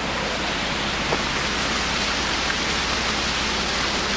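Waterfall rushing with a steady, even noise of falling water.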